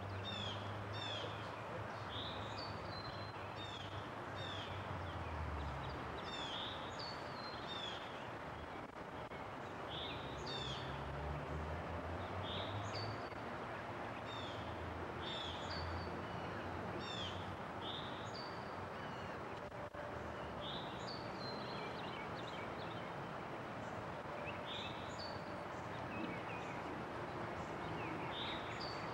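Small songbirds chirping, short high notes repeating every second or so, over a steady background hiss and a faint low rumble.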